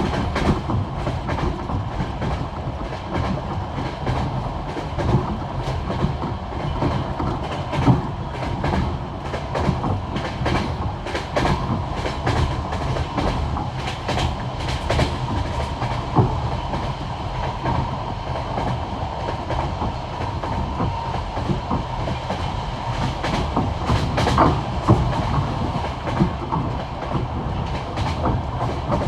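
Passenger train wheels running at speed over jointed (bolted) rail track, heard from a carriage window: a steady rumble with a continuous clickety-clack as the wheelsets cross the rail joints, and a few louder knocks about eight seconds in and again near the end.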